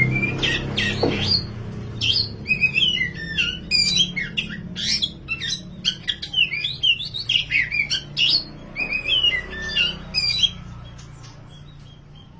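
Oriental magpie-robin (kacer), dark 'wulung' form, singing a loud, fast, varied song of whistles and chattering notes that stops near the end, over a low steady hum.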